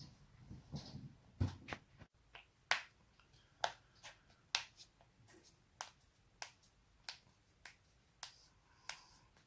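Joints being cracked, as in neck and back adjustment: a long run of sharp pops, often two or three in quick succession, about every half second from a second or so in.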